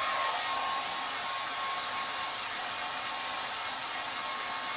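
Handheld hair dryer running steadily, blowing air through long, thick wet hair: a noisy, even rush of air with a thin steady whine beneath it.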